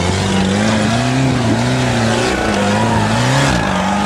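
Toyota Hilux competition 4x4's engine revving up and down repeatedly under heavy load on a rocky hill climb, with its mud tyres spinning and throwing dirt.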